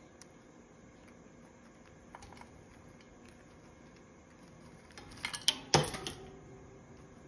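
Green-winged macaw's beak knocking and rattling in its food bowl while it forages, a quick cluster of clatters near the end, after a few faint ticks.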